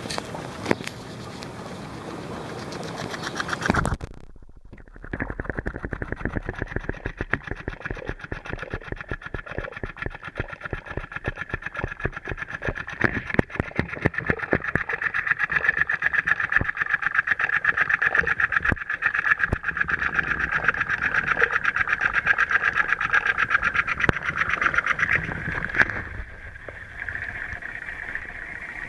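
Dirt Devil Whisper Vac robotic vacuum cleaner running: a steady motor whine with rapid clicking. It starts about five seconds in and stops a few seconds before the end.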